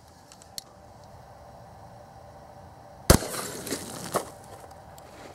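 A 12-gauge shotgun fired once, about three seconds in, with an Aguila mini slug mini shell: a single sharp report, followed by two fainter cracks within the next second. A small click about half a second in.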